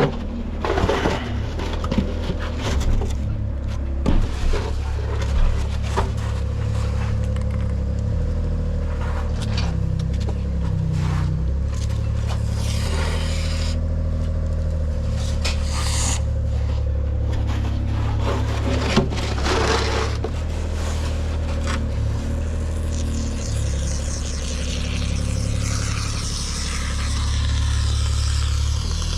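Work noise: scraping and several sharp knocks, bunched in the first few seconds and again briefly later, over a steady low rumble.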